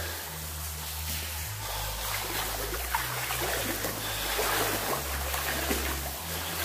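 Sloshing and splashing of someone wading through standing water on a flooded tunnel floor, over a slow, low music drone that shifts note every second or so.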